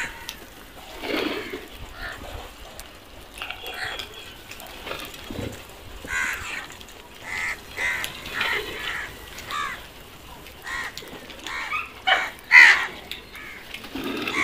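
Several house crows cawing over and over, short harsh calls every second or so, with the loudest calls near the end.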